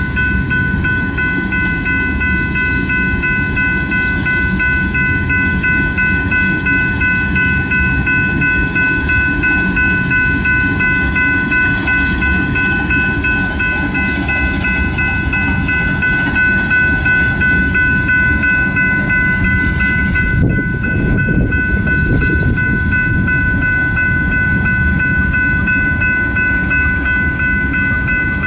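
Loaded tank cars of a freight train rolling past at a grade crossing, the wheels rumbling and clacking on the rail joints. Over it a crossing warning bell rings steadily at a high pitch.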